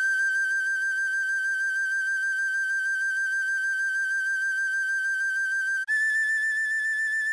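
Tin whistle playing a slow melody: a long held G with a gentle vibrato, stepping up to A about six seconds in. A soft, low held chord under it dies away about two seconds in.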